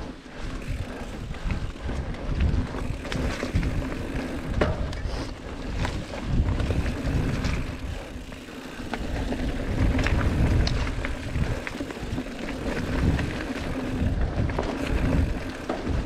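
Mountain bike riding on a dirt trail: wind buffeting the camera microphone in uneven gusts, with tyres on dirt and the bike clattering and clicking over bumps, and a faint steady hum underneath.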